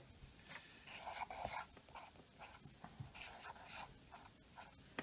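Faber-Castell ink pen scratching across sketchbook paper, writing letters in short strokes: one cluster of strokes about a second in and another about three seconds in, with a few fainter ticks between.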